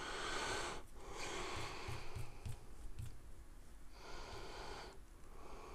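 Faint breathing close to the microphone, a few soft breaths with short pauses between them.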